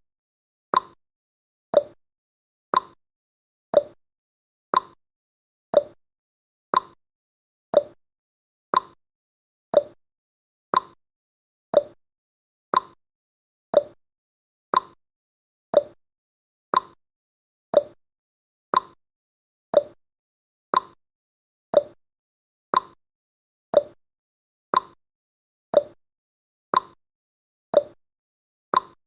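Clock ticking sound effect: sharp tick-tock clicks about once a second, alternating between a higher and a lower click.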